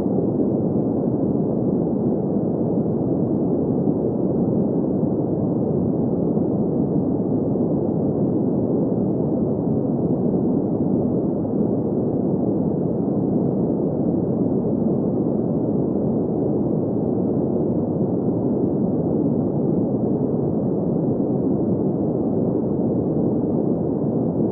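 Steady, unchanging green noise: an even hiss-like rumble centred in the low and middle range, with nothing high.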